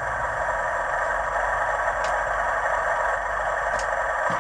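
Hornby TTS sound decoder playing a diesel locomotive engine running steadily through the model's small onboard speaker, thin and confined to the middle of the range.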